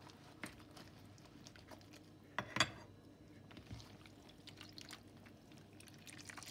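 Faint wet squelching and dripping as yufka pastry sheets are pressed and worked by hand in a bowl of beaten egg and water, then lifted so the egg drips back. There is a brief louder clatter about two and a half seconds in.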